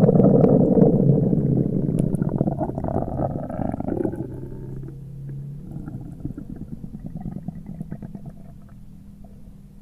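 Hyperactive bowel sounds heard through a stethoscope: continuous, irregular gurgling and rumbling of gas and fluid moving in the intestines. The sounds are loudest at first and grow fainter after about five seconds. They are the increased bowel sounds typical of gastroenteritis with diarrhoea.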